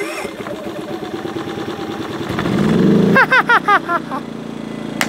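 EcoFlow Smart Generator's small petrol-type engine running on bottled LPG. Its pitch rises over about a second as it speeds up, then holds steady. A man laughs in short bursts about three seconds in.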